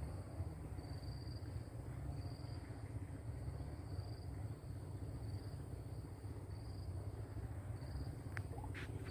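Riverside insect chorus: a short high chirp repeating about once a second over a steady thin high whine and a low rumble, with a few faint clicks near the end.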